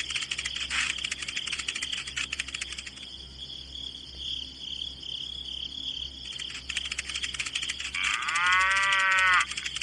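A cow moos once, a single pitched call near the end that is the loudest sound, over a steady background of fast, dense ticking.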